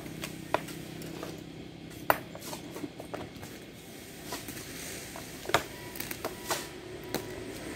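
Irregular sharp clacks and knocks of rocks striking one another and of a long bar levering against stone as the stones are set, about a dozen over the stretch, the loudest about two seconds in and again near five and a half seconds.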